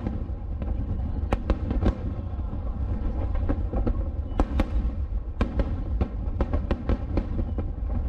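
Large aerial firework shells bursting one after another: repeated sharp bangs, one or two a second at uneven spacing, over a continuous low rumble.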